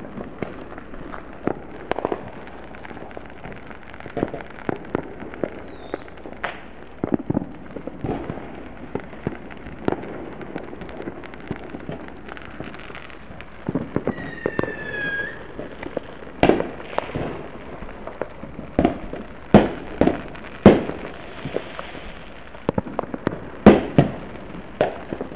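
Distant fireworks and firecrackers going off, a scattered run of pops and bangs with the loudest reports coming in the second half. There is a short whistle about 14 seconds in.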